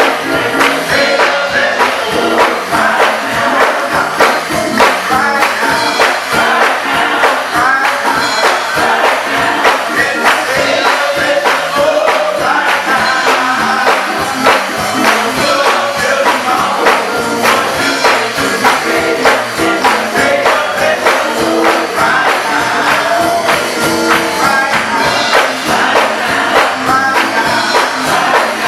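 Gospel choir singing with a band, a tambourine shaken and struck in a quick steady beat.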